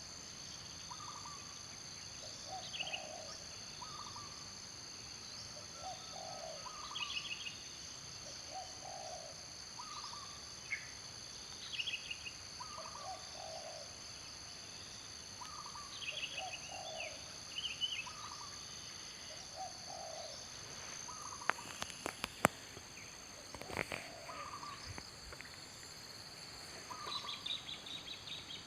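Wild birds calling over a steady insect drone: a low call repeats about every two seconds, mixed with higher chirps and short trills. A few sharp clicks come a little past the middle.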